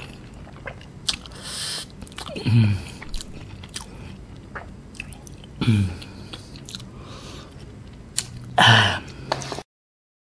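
A person chewing a mouthful of instant ramen noodles, with small wet clicks and smacks from the mouth. Three times a short, breathy voiced hum falls in pitch, the last one the loudest. The sound cuts out briefly near the end.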